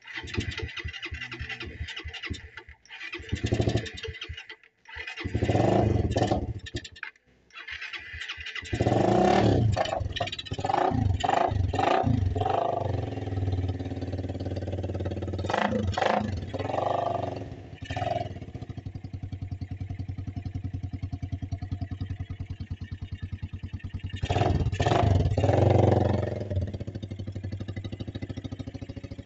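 Suzuki R150 motorcycle's single-cylinder four-stroke engine running just after an oil change. It stumbles and drops out briefly a few times in the first eight seconds, then is revved in several short bursts and settles to a steady idle.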